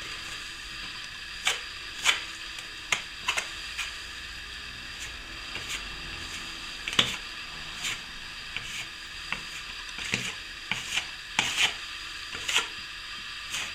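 Plastering trowel skimming wet plaster over a wall patch: short, irregular scraping strokes and sharp clicks of the blade, over a steady hiss.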